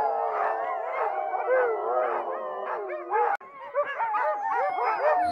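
A chorus of harnessed sled dogs howling and yipping together, many voices overlapping in wavering, gliding calls, with a brief break about three and a half seconds in.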